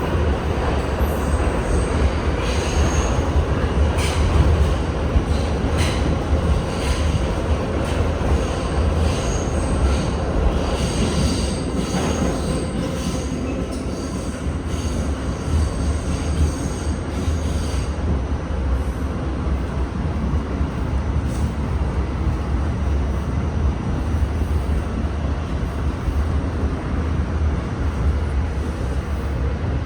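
R68 subway car running, heard aboard: a steady rumble with high wheel squeal and a few sharp clicks over the first half, easing to plain running noise later on.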